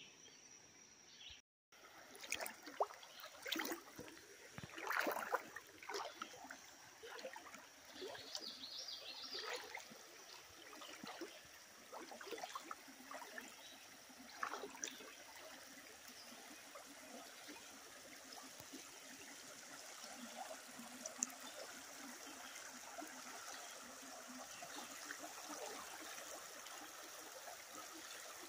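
Shallow river water trickling and rippling over a rocky riffle, faint and steady. Scattered short knocks and clicks run through the first half.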